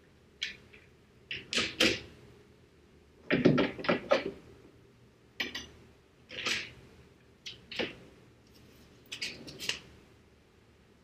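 Short clicks, knocks and rattles of hand work on a car's hood as a plastic heat-extractor hood vent and its fittings are handled and fitted back in, with a quick clatter of several knocks about three and a half seconds in.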